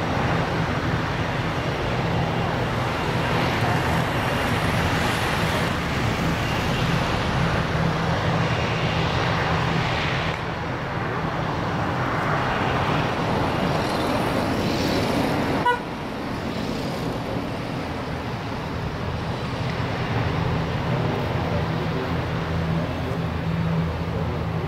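ATR 72-600 turboprop taxiing, its Pratt & Whitney PW127M engines and propellers running steadily with a low, even propeller hum. A single sharp click about two-thirds of the way in.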